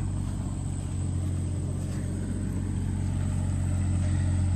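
Mini excavator's diesel engine running steadily with a low hum while digging.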